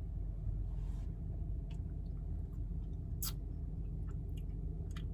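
Steady low rumble inside a car cabin with scattered small clicks and taps, one sharper click about three seconds in: the handling of drink cups and a bit of eating during a taste test.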